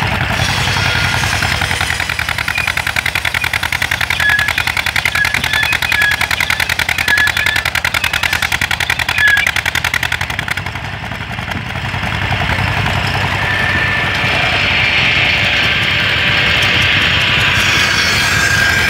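1947 SOLO H8 stationary engine running steadily, a fast even patter of firing beats, driving a flat belt to a saw bench. About halfway through the beats fade back and a steady hiss comes up.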